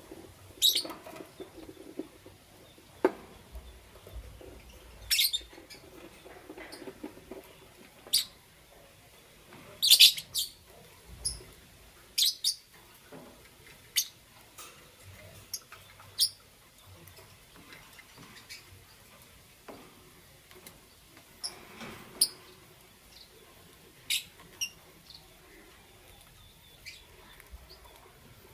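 Lovebirds giving short, sharp, high chirps at irregular intervals, roughly one every second or two, with a louder cluster of calls about ten seconds in.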